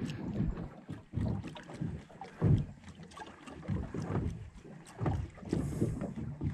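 Wind buffeting the microphone in uneven gusts, with water lapping against the boat's hull.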